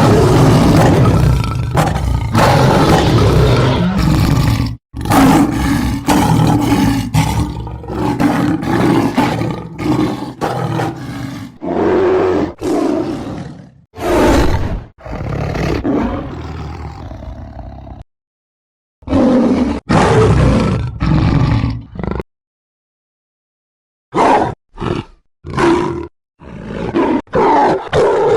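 Lion and tiger roars and growls edited one after another: a run of long, loud roars, then after a couple of abrupt silent gaps a string of short growling calls near the end.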